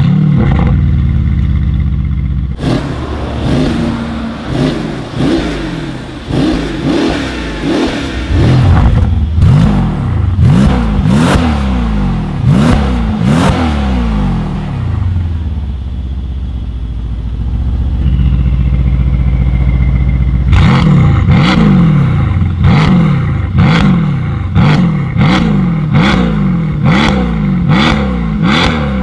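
Mercedes-AMG C63 S twin-turbo V8 through an iPE titanium valved exhaust, revved repeatedly while standing, the pitch sweeping up and falling back, with sharp cracks as the revs drop. It idles steadily for several seconds in the middle; the first run of revs is with the exhaust valves closed, the second with them open.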